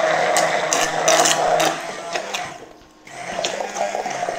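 Hand-held immersion blender running in a stainless-steel jug, blending oil, egg and mustard into a mayonnaise emulsion, with clicks and rattles as the blade head works in the jug. The motor stops briefly about two and a half seconds in, then runs again.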